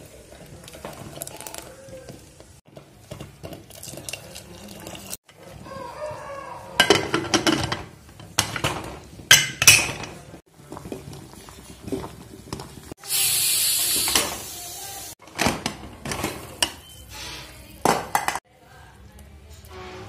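A series of short kitchen clips: a utensil clinking and scraping against steel pots. Around two-thirds through there is a loud, steady hiss lasting about two seconds, and near the end oil bubbles and sizzles in the pressure cooker.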